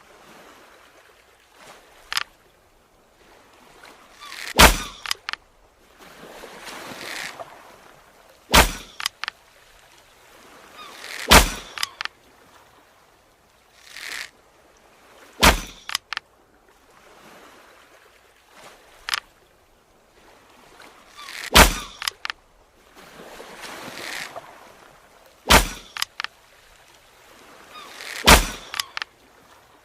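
Bow-and-arrow shots repeated about seven times, each a sharp crack every few seconds, with whooshing rushes of air swelling in between.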